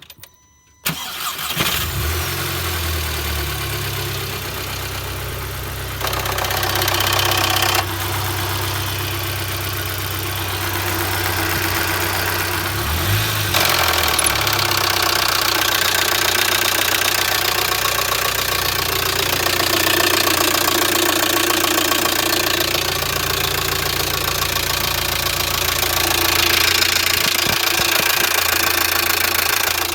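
VW Golf Mk5 GTI's 2.0 TFSI (AXX) turbocharged four-cylinder engine starting about a second in and then idling with a rattle, the 'klappern' that the owner is showing as a fault.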